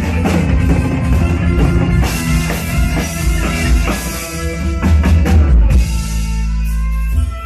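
Small live rock band playing: a drum kit with cymbals driving the beat under electric guitar and bass guitar. Over the last second or so the drumming thins out under a held low note.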